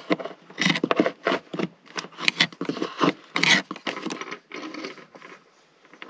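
Hand tools handled and scraping on a wooden floor: scissors picked up and set down, and a screwdriver probing for a dropped part, giving an irregular run of clicks, knocks and scrapes.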